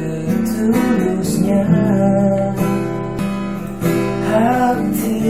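Acoustic guitar strumming under a sung line of an Indonesian pop love song, the voice holding out a long word about a second and a half in.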